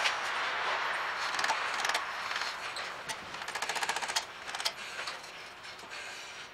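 Metal scraping and clicking as a small screwdriver is worked round the edge of a seized ABS sensor in the front hub knuckle and the sensor is wiggled loose, with a quick rattle of clicks around the middle.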